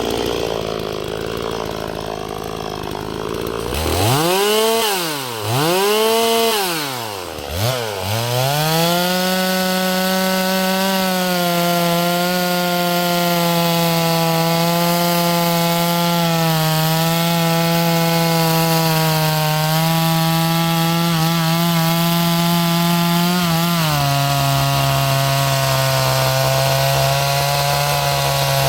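Two-stroke chainsaw revved up and down three times, then held at high speed with a steady whine that wavers slightly now and then. About twenty-four seconds in, the engine speed steps down to a lower steady note.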